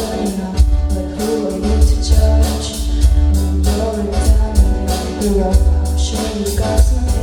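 A song with a steady beat, strong bass and plucked guitar, with some singing.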